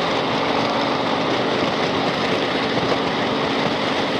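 Harley-Davidson Street Glide's V-twin engine running steadily while riding, mixed with a constant rush of road noise.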